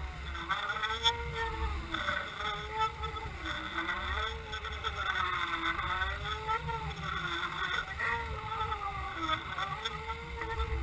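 Boat's motor heard underwater through the towed camera's housing while trolling: a low rumble under a whine whose pitch rises and falls in smooth swells every couple of seconds.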